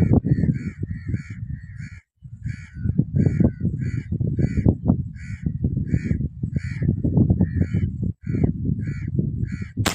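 A bird calls over and over in short harsh notes, about two a second, over a loud low rumble. Near the end comes a single sharp crack, the shot of a PCP air rifle.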